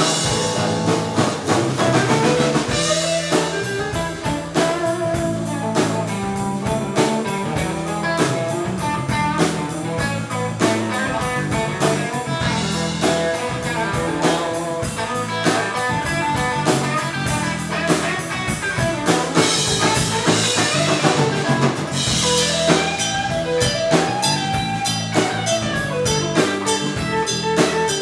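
Live band playing an instrumental passage without singing: electric guitar, acoustic-electric guitar and bass over a drum kit keeping a steady beat.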